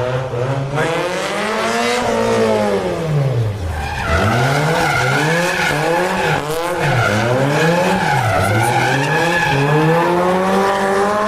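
Car engine revving hard and falling back, first in one long swell and then in several quick blips, and holding high revs near the end.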